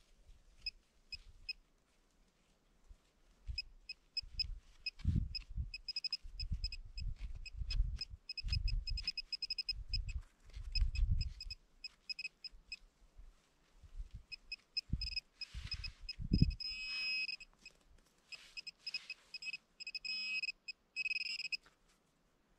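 Metal detector giving short high beeps in quick runs over a target in a freshly dug hole, among low thumps and rustling from digging in the soil. The target is a horse-harness ornament.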